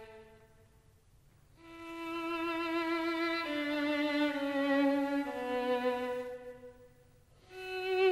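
A violin playing a slow melody in long held notes with vibrato. One phrase dies away at the start, a new one begins about a second and a half in and steps down in pitch, and after a short pause another phrase starts near the end.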